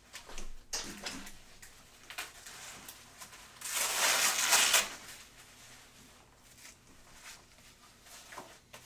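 Handling noise from a backpack vacuum's harness and straps as it is put on: scattered clicks and rustles, with a louder scraping rustle lasting about a second near the middle. The vacuum's motor is not running.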